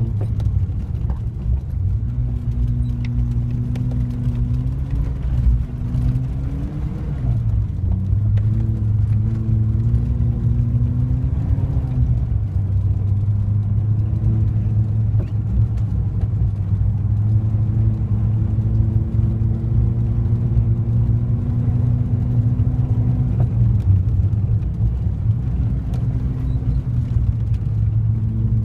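VW Golf GTI 1800's 1.8-litre four-cylinder engine heard from inside the cabin while driving on a snowy road, with a low road rumble under it. The engine note holds fairly steady, creeping up in pitch and falling back a few times, around seven and twelve seconds in.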